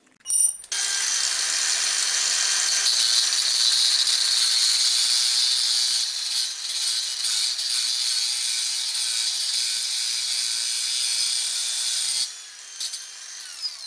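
Electric angle grinder's disc grinding down the tip of a steel magnet shutter key clamped in a bench vise: a loud, steady, high hiss of metal being ground. The grinding cuts off near the end and the grinder winds down.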